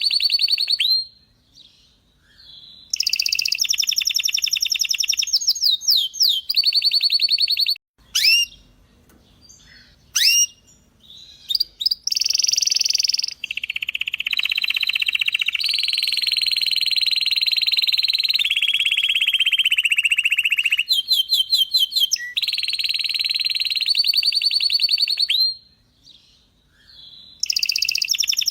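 Domestic canary singing: long phrases of fast trills and rolls, including one long roll of several seconds that slowly falls in pitch, broken by two short pauses.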